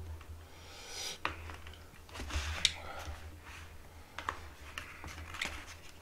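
A metal utensil clicking and scraping against a plastic takeout container as spicy buckwheat noodles (makguksu) are stirred and worked, with a handful of sharp clicks spaced a second or so apart over a faint rustle and a low steady hum.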